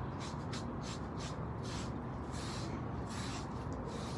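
Furminator deshedding tool's steel comb edge raking through a husky-shepherd dog's thick undercoat, pulling out loose dead hair. A short rasping brush stroke comes about twice a second, in an uneven rhythm.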